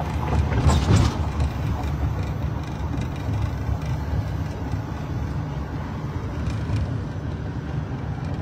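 Steady low rumble inside a police car's cabin, heard from the back seat, with a brief louder noise about a second in.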